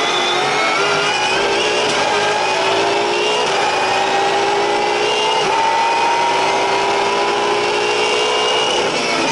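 V8 Supercar's 5.0-litre V8 engine running hard, heard from inside the cockpit. Its pitch climbs slowly over several seconds, then holds, with a brief dip near the end.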